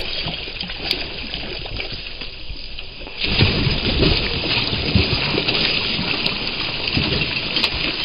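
Water splashing and churning in a shallow stream as a dog lunges and paws into it at the bank, louder and more vigorous from about three seconds in.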